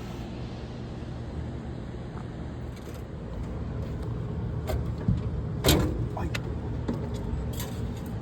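A large vehicle engine running steadily at a low pitch, with several sharp clanks and knocks in the second half.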